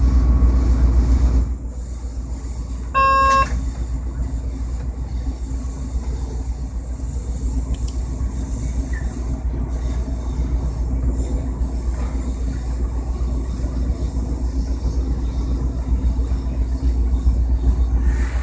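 Steady low rumble and hum heard inside a moving train's driver's cab, louder for the first second and a half. About three seconds in comes a short, half-second pitched tone.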